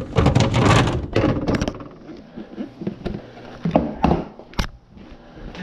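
Clunks and knocks of a refrigerator and its doors being handled as it is stripped down to lighten it. There is dense clattering for the first second and a half, then a few sharp knocks about four seconds in.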